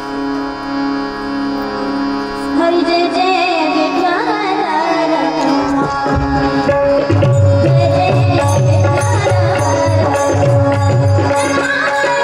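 Devotional kirtan music: a held harmonium-like drone, then a high singing voice comes in about two and a half seconds in, and drumming joins with a steady beat about seven seconds in.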